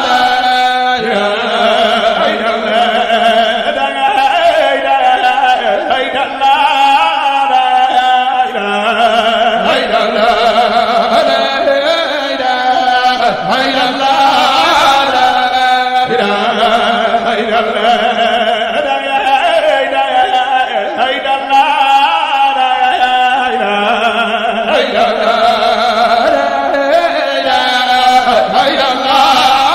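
A man's voice chanting religious verse, drawing out long held notes that bend and turn from pitch to pitch.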